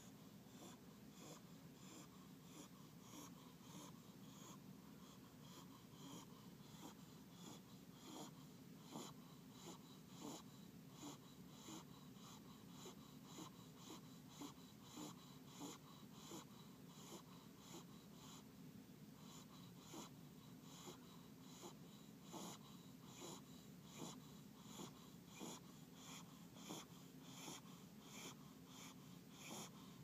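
Small long-haired dog snoring faintly in its sleep: soft, wheezy breaths in a steady rhythm, about one a second.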